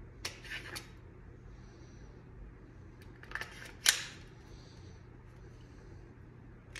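Metallic clicks from a Glock 43X MOS pistol's slide and action being worked by hand: a short cluster of clicks just after the start, and another about three seconds in that ends in one sharp, louder click.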